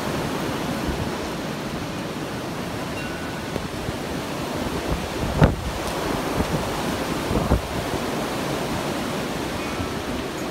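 Strong nor'easter wind rushing through bare trees and pines, a steady roar that swells in gusts, with wind buffeting the microphone. A sudden thump comes about halfway through.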